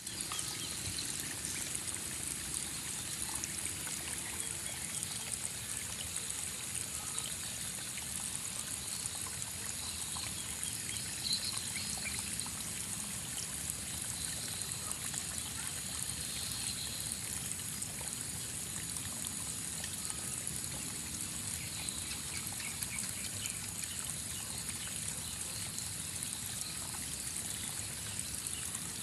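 Steady trickling of running water.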